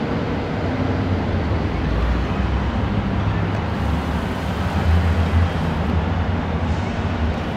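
Steady low rumble of road traffic, with a swell about five seconds in.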